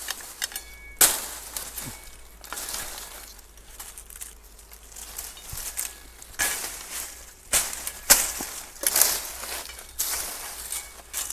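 Branches and thorny brush cracking and snapping, an irregular series of sharp crashes, busiest in the second half.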